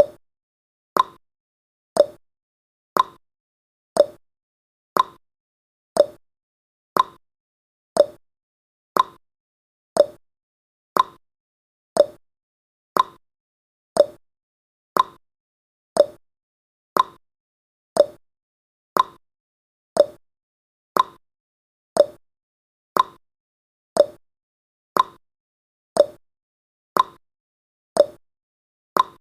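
Countdown timer's clock-tick sound effect: a steady tick-tock, one short click every second, alternating between a higher tick and a lower tock.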